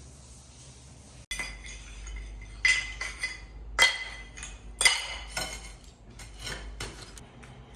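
Hard kitchenware clinking and knocking together in a series of sharp, ringing clinks, three of them louder than the rest.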